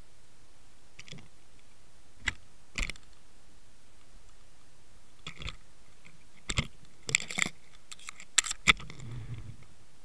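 Irregular sharp clicks and knocks heard underwater as a metal sandeel jig and the camera rig on its line are jerked about near the seabed, thickening into a quick cluster near the end, followed by a short low rumble.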